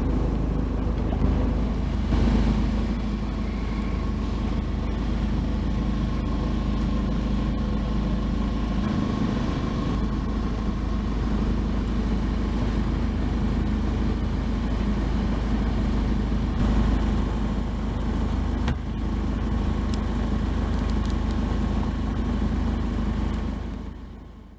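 The Jeanneau Aquila sailing yacht's engine running at a steady speed as the boat motors slowly; fades out near the end.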